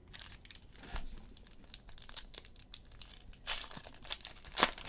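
Foil wrapper of a basketball card pack crinkling and tearing as it is opened and the cards are slid out. The crackles grow louder and denser over the last second and a half.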